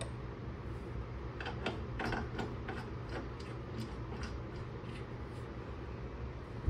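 Irregular light metallic clicks and ticks of hand-tool work on the bolts of a car's rear suspension, loosest in a cluster a second and a half to three and a half seconds in, over a steady low hum.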